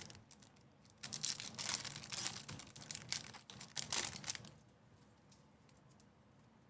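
Crinkling and tearing of a foil trading-card pack wrapper being handled and torn open, for about three and a half seconds starting about a second in.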